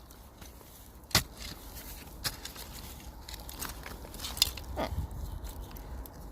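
Digging by hand in old rubbish-tip soil full of glass and debris: scrapes and crunches with a few sharp clinks, the loudest about a second in.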